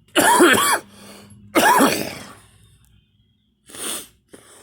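A person coughing: two hard, voiced coughs about a second and a half apart, then a fainter, shorter sound near the end.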